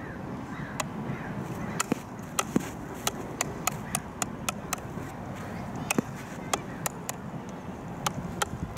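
Hard field hockey ball bouncing again and again on the flat face of a field hockey stick: sharp taps, about two to three a second, over a steady low background noise.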